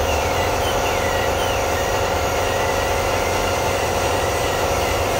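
Dental equipment running during treatment in a patient's mouth: a steady mechanical hum with a faint, wavering high whine over it.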